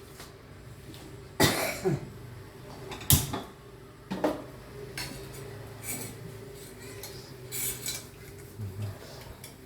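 Metal pots and cutlery being handled in a kitchen: a string of sharp clanks and clatters, the loudest about one and a half and three seconds in, over a steady low hum.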